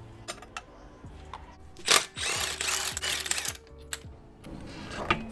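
Cordless impact wrench hammering a wheel lug bolt loose, a loud run of about a second and a half starting about two seconds in, with a sharp click near the end.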